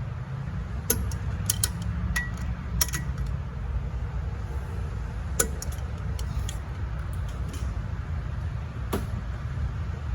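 Scattered sharp metallic clicks and clinks of hand tools and sockets being handled, over a steady low hum.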